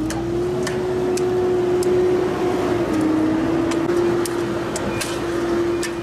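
Shovels striking stony soil in sharp scattered clicks, over a steady motor hum that holds one pitch.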